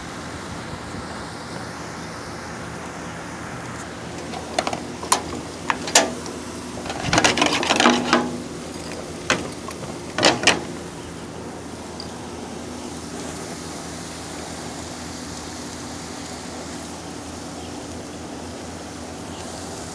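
A steady low hum, with a run of sharp clicks and knocks between about four and eleven seconds in, thickest around eight seconds.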